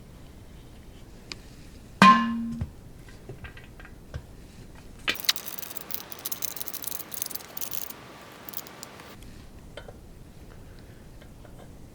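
Cast-metal parts of a paint pressure pot being put back together: one loud metallic clank about two seconds in that rings briefly, then about four seconds of clicking, scraping metal-on-metal handling.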